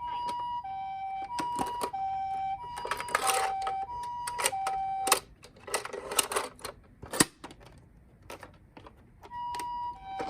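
Toy ambulance's electronic two-tone siren, the Japanese "pee-po" alternating between a higher and a lower note, stopping about five seconds in and starting again near the end. Plastic toy cars clatter and click throughout as the box of minicars is rummaged, with one sharp click a couple of seconds after the siren stops.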